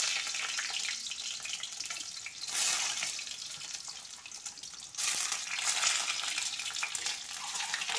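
Hot oil sizzling as peeled boiled eggs fry in a kadhai, a steady high hiss that drops and swells abruptly a couple of times.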